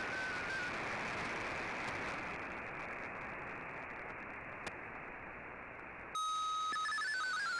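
Shortwave receiver audio from a weak, noisy 5850 kHz signal: a steady hiss, with a short stepped RSID identification tone ending about half a second in. About six seconds in, a steady tone starts, then the warbling, rapidly hopping tones of an MFSK32 digital text transmission.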